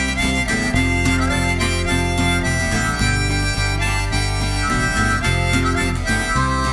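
Instrumental break of a Scottish folk song: a reed instrument plays the melody over guitar chords and a steady bass, the chords changing about once a second.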